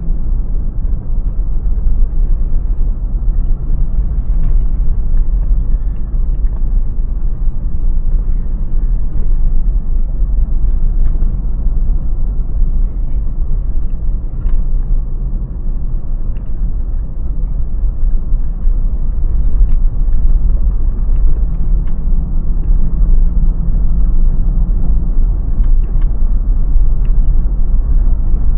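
Car driving steadily: a continuous low rumble of road and engine noise, with a few faint ticks and clicks over it.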